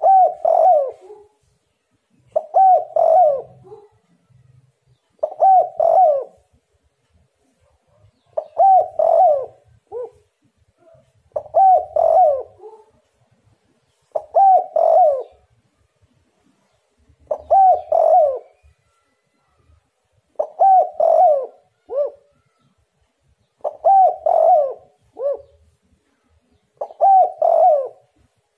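Spotted dove cooing its song, a short phrase of several coos about a second long, repeated about every three seconds with pauses between.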